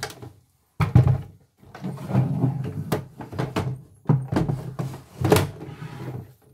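Knocks, bumps and scraping of hard plastic as a portable embroidery machine and its attached embroidery unit are handled and moved about, in several short bursts with brief pauses between them.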